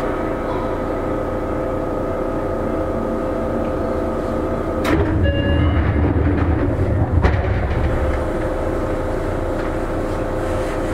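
Seibu 9000 series electric train running, heard from on board: steady motor and inverter tones over wheel-on-rail rumble. About five seconds in, a sharp click brings a louder, deeper rumble with the high end muffled, lasting about three seconds and ending in another click.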